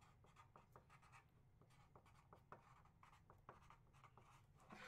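Near silence with faint pen-on-paper scratching and scattered light ticks.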